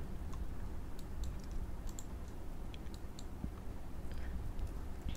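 Faint, scattered clicks of a computer mouse and keyboard being worked, over a low steady hum.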